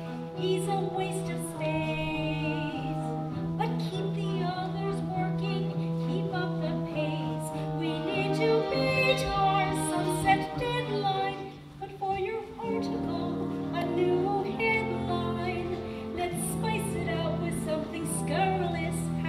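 Opera singing with instrumental accompaniment: voices, among them women's and children's, sung over held accompanying notes. A little before the middle the music briefly drops away, then carries on with lower notes.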